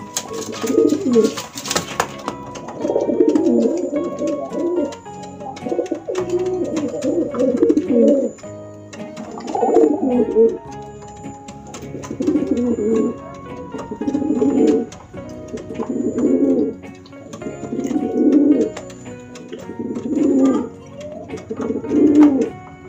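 Feral pigeons cooing, one low cooing phrase about every two seconds, over light background music. A brief flutter of wings sounds in the first two seconds.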